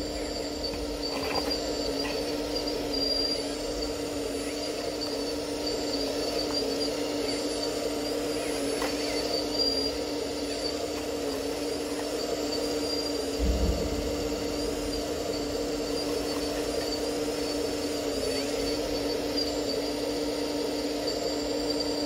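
Radio-controlled Liebherr 954 model excavator running with a steady motor whine, and a dull low thump a little past halfway.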